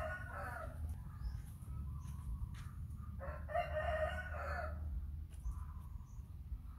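A rooster crowing twice: one crow trailing off under a second in, and a second full crow about three seconds in, each lasting about a second and a half.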